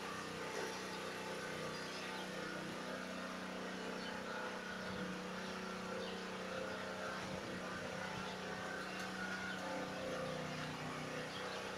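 A motor running steadily in the background with a constant low hum.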